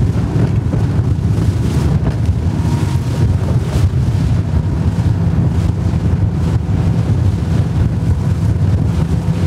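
Wind buffeting the microphone as a bass boat runs at speed over choppy water: a loud, steady low rumble of wind and rushing water, with a faint steady hum under it.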